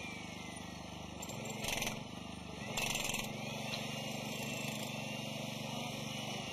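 A steady low machine hum under a noisy rubble-site background, with two short bursts of hiss about two and three seconds in.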